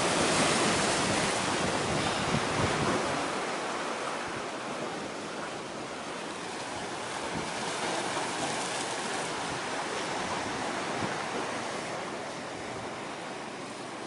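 Sea waves washing with wind buffeting the microphone: a steady rushing noise, loudest in the first few seconds and then settling lower.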